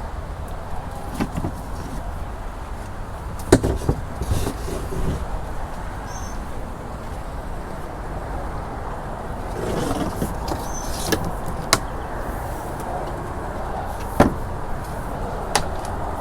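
Scattered knocks and clatter of parts and cables being pulled out of a boat hull, with some rustling, over a steady low rumble.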